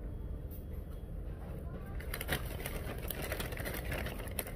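Brown paper takeout bag crinkling and rustling in short bursts as fries are taken out of it, over a steady low rumble of background room noise.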